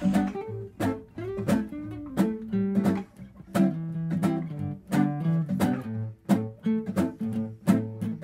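Background music on acoustic guitar: plucked notes and light strums at a steady, even pace.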